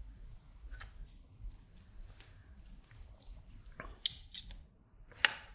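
Faint small clicks and taps of hand-soldering LED leads on a circuit board. About four seconds in, a brief burst of crisp, high rustling and a sharp click near the end as the board and its masking tape are handled.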